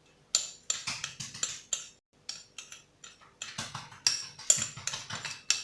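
A spoon clinking and tapping against a saucepan and dishes, with many short irregular clinks, some ringing briefly: ingredients being spooned into the pan.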